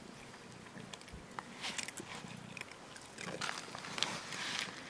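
Cats eating off the ground, chewing and crunching bits of food with small crisp clicks and crackles that come in clusters, thickest in the second half.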